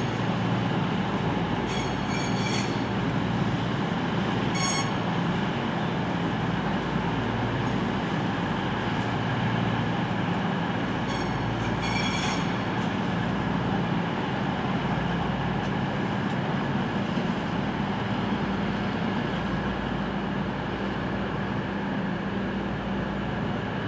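East Midlands Railway Class 222 Meridian diesel multiple unit running slowly past, its underfloor diesel engines droning steadily. A few short, high-pitched wheel squeals come from the wheels on the curving track, the clearest about two seconds in, near five seconds and about halfway through.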